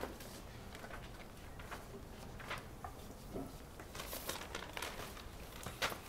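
Quiet, scattered scratches and light taps with no sustained notes. A sheet-music page is turned on a stand about four seconds in, and there is a sharp click near the end.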